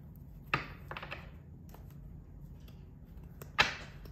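Tarot cards being handled and tapped on a wooden desk: a few sharp card taps and flicks, the loudest near the end.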